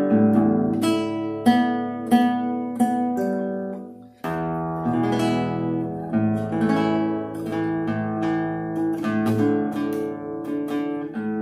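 Acoustic guitar played by hand: separate plucked notes about two a second for some four seconds, a brief break, then fuller picked chords ringing on.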